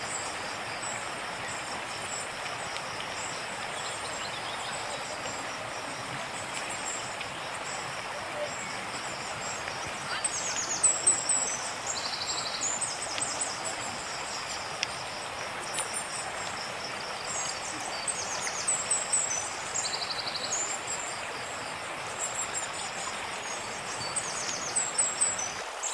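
Steady rushing of a swollen, flooded river, with birds chirping high over it in short bursts, busiest about ten seconds in and again near twenty seconds.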